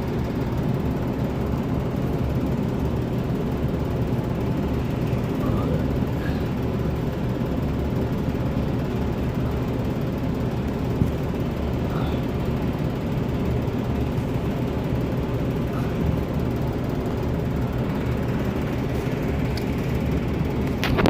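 Steady mechanical hum of a running gas furnace in its utility room, with a single faint click about eleven seconds in.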